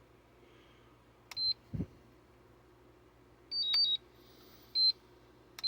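Hobby battery charger beeping as it is set up to charge a 6S lithium-ion pack: short single high beeps, and about halfway a quick run of alternating high-low beeps. There is a short low thump just under two seconds in.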